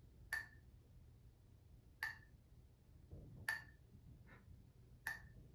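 Pen tapped against a ceramic mug four times, about a second and a half apart, each a sharp clink with a brief ring, played as a slow ticking.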